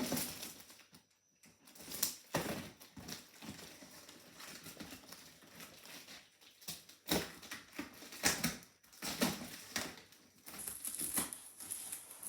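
A cardboard shipping box being opened by hand: irregular scraping, crackling and knocks of cardboard and packing tape, with a longer rasping stretch near the end.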